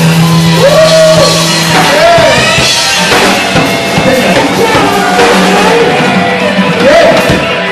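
Live rock band: a man singing into a microphone over a drum kit, with a held low note under the first second or two.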